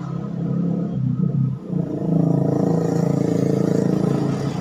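A steady low mechanical hum that grows louder about two seconds in.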